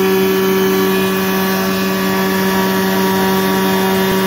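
CompAir L90 oil-injected rotary screw air compressor running under load at 7.5 bar, a loud steady hum that holds one pitch throughout.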